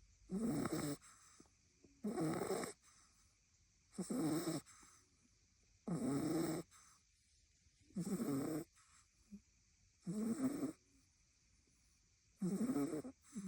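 French bulldog puppy snoring in its sleep: a rough, pitched snore about every two seconds, each lasting about half a second, seven in all. Snoring like this is typical of the breed's short, flat-faced airway.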